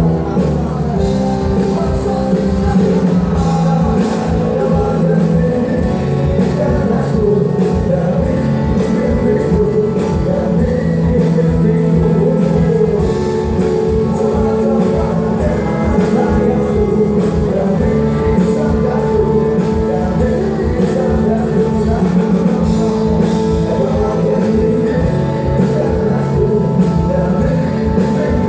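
Rock band playing live at a sound check: a full band with a steady drum beat under sustained instrument tones, with singing.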